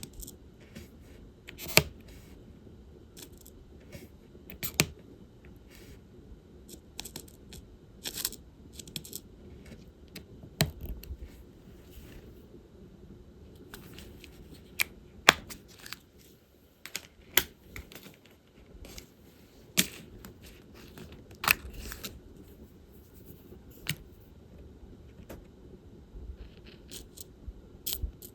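Diamond painting handling: light, irregular clicks and taps of a drill pen and small plastic resin drills, tray and case. About six of the clicks are much louder than the rest, over a faint steady hum.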